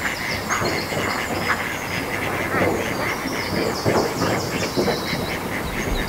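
Water rushing over a low stone weir, a steady, crackling flow, with high bird chirps around the middle.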